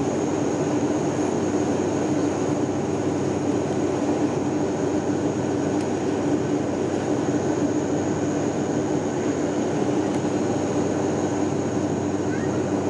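Steady cabin noise of an airliner in flight: engine and airflow drone, with a low hum and a thin, high steady whine over it.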